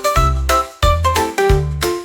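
Upbeat children's-song instrumental with a bouncing bass note on each beat and short bright melody notes above it.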